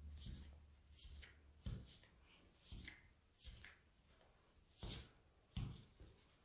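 Faint, scattered scrapes and taps of a plastic dough scraper cutting through soft dough and touching a stainless-steel worktop, about five short strokes.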